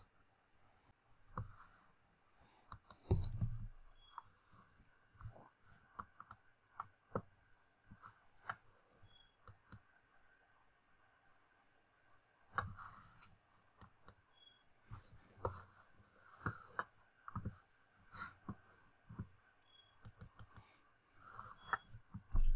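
Computer mouse clicking now and then, single sharp clicks at irregular intervals, with a soft low thump about three seconds in and another near the end.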